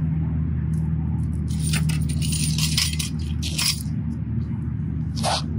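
Metal clattering and clinking as a motorcycle rear paddock stand is pulled out from under the bike and set down. It comes as a cluster of rattles from about one and a half to four seconds in, with one more brief clink near the end, over a steady low rumble.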